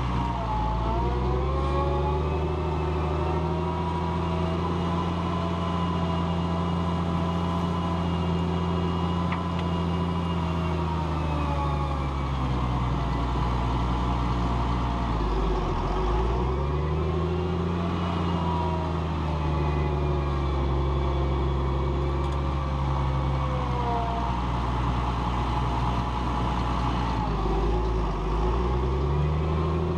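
Challenger MT765B tractor engine running hard while pulling a plough. Its note is steady, then drops in pitch and climbs back up about halfway through, and again near the end.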